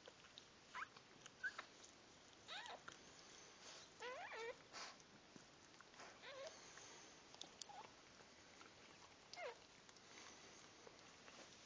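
Newborn dachshund puppies squeaking faintly: short, high whimpering cries every second or two, several falling in pitch, with a quick run of squeaks near the middle.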